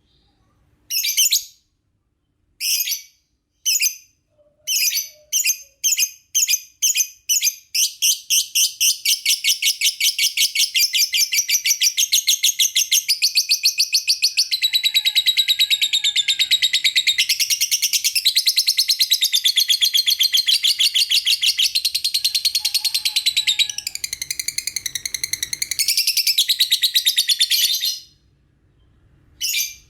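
Lovebird chirping: a few short, separate bursts of high chirps, then from about eight seconds in a long unbroken run of rapid chattering that stops suddenly near the end.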